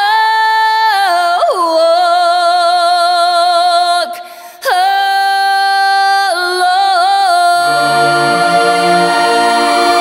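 Music: a solo voice singing long held notes with vibrato, unaccompanied at first, with a short break about four seconds in. Lower instrumental accompaniment joins near the end.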